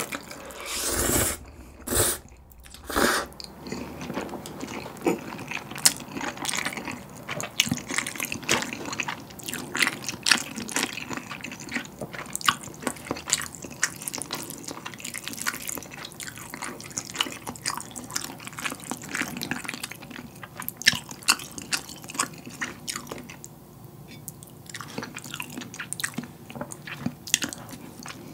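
Close-miked slurping of a mouthful of galbi-flavoured bibim ramyeon noodles, three loud slurps in the first few seconds, then steady wet chewing with many small smacks and clicks of the mouth.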